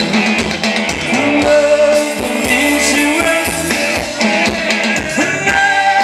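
Live band music for a Thai ramwong circle dance, with a guitar and a steady drum beat under sustained melody notes.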